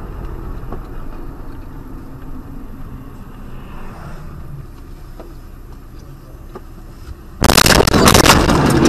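Steady road rumble of a moving car heard from inside. About seven and a half seconds in comes a sudden loud crash: a collision with a dense jumble of bangs and crunching.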